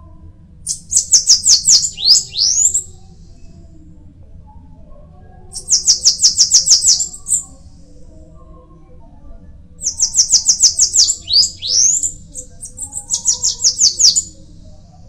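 Bananaquit singing: four phrases of rapid, high notes, about ten a second, each phrase roughly two seconds long and ending in a few sweeping notes.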